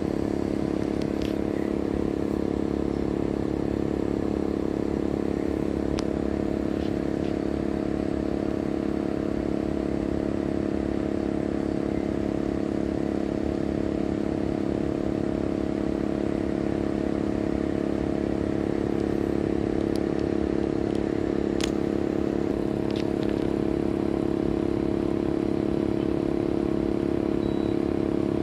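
Compressor of a Sanyo SAE-V28HF heat-pump air conditioner running in heating mode: a steady hum with several held tones and a couple of faint ticks. The owner finds it somewhat louder than it should be.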